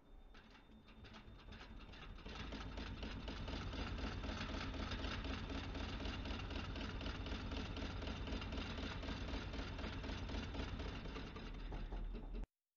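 Industrial twin-needle sewing machine stitching leather, a fast, even rattle of the needle stroke. It builds up over the first couple of seconds, runs steadily, and cuts off abruptly near the end.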